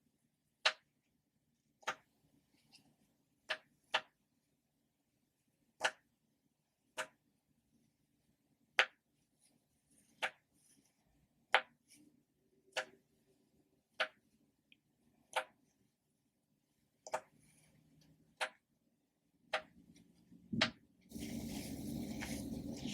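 Ocean-animal popper toys being popped one at a time, each giving a single sharp pop, about one a second at an uneven pace. Near the end a steady rushing noise sets in and runs on.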